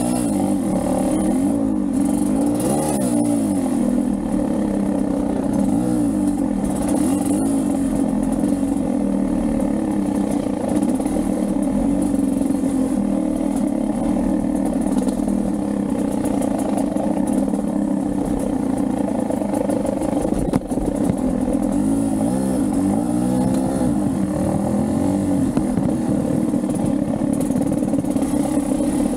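Beta 250RR two-stroke enduro motorcycle engine running under riding load, its pitch rising and falling with the throttle near the start and again about three-quarters of the way through, with a brief clack or two from the bike.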